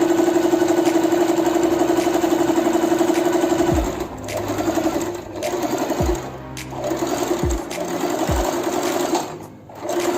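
Singer Promise 1412 electric sewing machine sewing a straight stitch. It runs steadily at speed for about four seconds, then in shorter start-and-stop runs with brief pauses.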